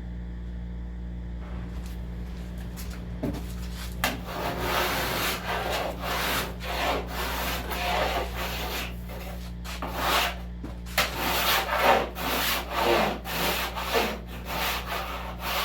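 Hand sanding of body filler on a steel car quarter panel: back-and-forth rasping strokes, about two a second, starting about four seconds in, over a steady low hum.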